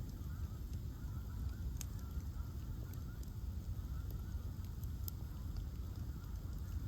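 Bonfire of ash logs burning with a steady low rumble and a few sharp crackles, over a faint wavering whistle.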